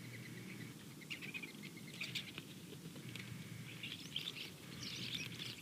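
Birds chirping in short bursts of high calls, a cluster about a second in, another about two seconds in, and a busier stretch in the last two seconds, over a faint steady hum.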